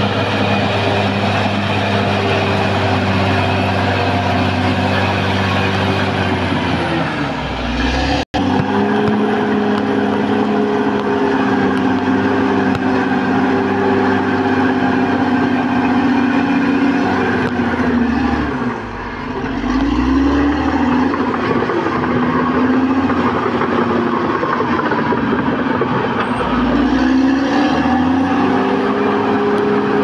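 Caterpillar D6R XL bulldozer's diesel engine running hard while the dozer works earth. Its note sags and picks back up several times, and the sound cuts out for a moment about eight seconds in.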